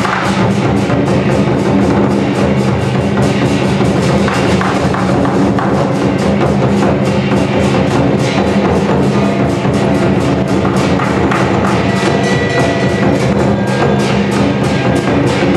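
Chinese lion dance percussion: a large drum beaten in a fast, even rhythm together with clashing cymbals, a dense unbroken stream of strokes at a steady loudness.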